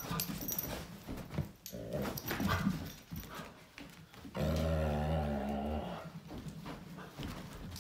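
Giant Schnauzer growling in play while keeping a milk bone away: rough low sounds, then one long low growl about four and a half seconds in.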